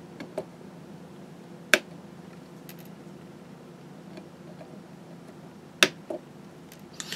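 Diagonal side cutters snipping the excess leads of a newly soldered capacitor on a circuit board: two sharp clicks about four seconds apart, with a few faint ticks between.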